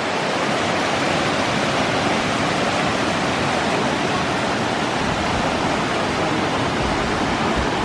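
Steady rush of river water pouring over a small dam.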